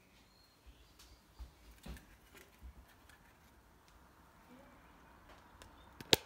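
Handling noise from a handheld light meter and camera being moved: a few soft knocks and rubs, then one sharp click about six seconds in.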